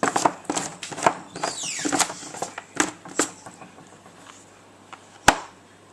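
Magnets and items being taken off and moved around on a fridge door: a quick run of clicks, knocks and rustling, then, after a quieter stretch, one sharp click near the end as a magnet snaps onto the door.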